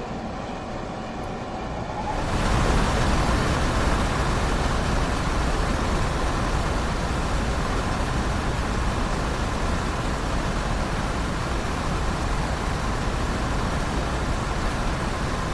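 RV rooftop air conditioner starting up about two seconds in, its fan and compressor then running steadily and staying on rather than cutting out after a couple of seconds, a sign that the fault is cleared.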